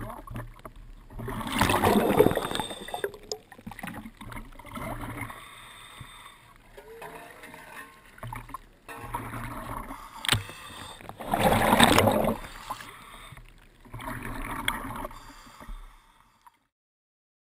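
Water sloshing and splashing at a camera held at the waterline, rising in three louder surges about two, twelve and fifteen seconds in. The sound cuts off abruptly near the end.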